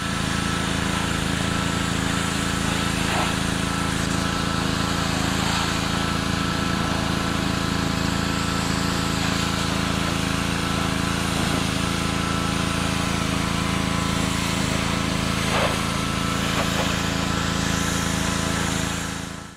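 Pressure washer running steadily: a motor hum under the hiss of the high-pressure water jet spraying a metal rack.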